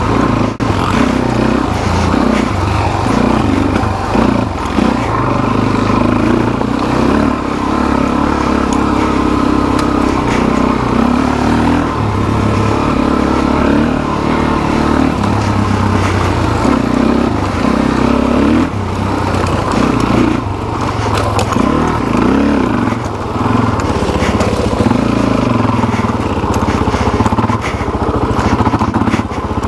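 Suzuki DR-Z400SM's single-cylinder four-stroke engine under way on a dirt trail, its note rising and falling every few seconds as the throttle opens and closes, with occasional knocks over the bumps.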